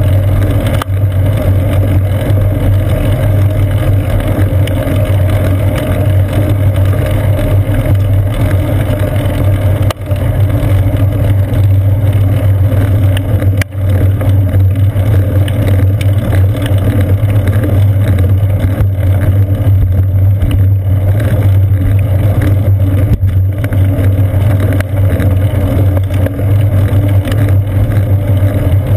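Steady, loud low rumble of wind and road vibration picked up by a seat-post-mounted GoPro Hero 2 on a moving bicycle, with two brief drops in level about ten and fourteen seconds in.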